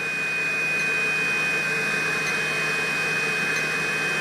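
Steady fan whir with a thin, constant high-pitched whine, from a power pack's built-in 12-volt-to-120-volt inverter running a load of about 290 watts off its battery.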